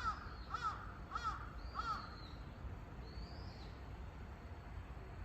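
A crow cawing four times in quick succession, about 0.6 s apart, over a low steady background rumble.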